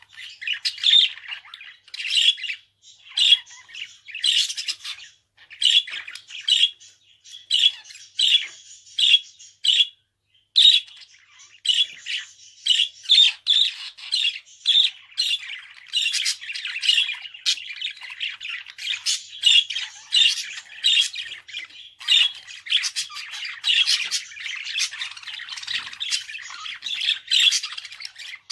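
Budgerigar chattering and squawking: a rapid run of short chirps and squawks, with a brief pause about ten seconds in before it goes on without a break.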